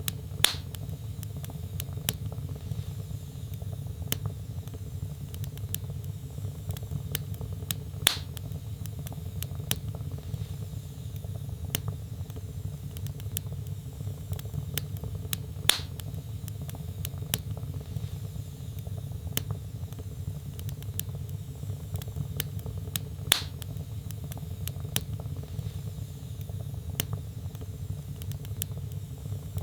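Wood fire burning in a fireplace: a steady low rumble of flames with frequent small crackles, and a louder sharp pop about every seven to eight seconds.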